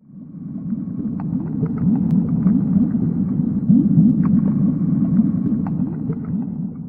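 Low rumbling sound effect for a closing logo, fading in from silence and out again near the end, with scattered faint clicks over it.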